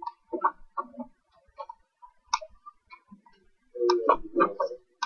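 Clicks of a computer mouse in short, irregular runs, with a dense cluster about four seconds in.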